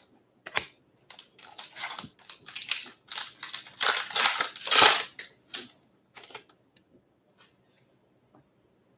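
Foil wrapper of a Stadium Club Chrome trading-card pack being torn open and crinkled: a run of sharp crackling rustles, loudest about four to five seconds in. After that there are only a few faint clicks as the cards are handled.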